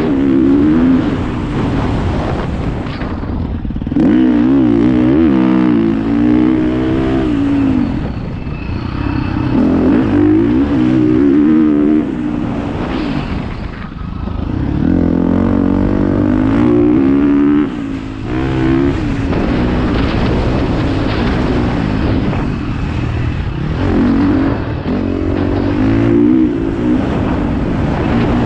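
Dirt bike engine running hard, its pitch repeatedly rising and falling as the throttle is opened and rolled off every few seconds.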